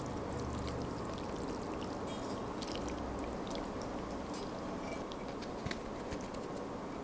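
Wet, sauce-coated instant fire noodles sliding out of a pan onto a plate, with a steady hiss full of small crackles.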